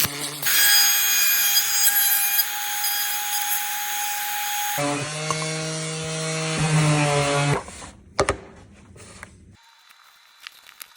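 Electric power tool running on wood: a dense, high-pitched cutting noise, then a lower steady motor hum. It cuts off about three-quarters of the way through, leaving a few light clicks.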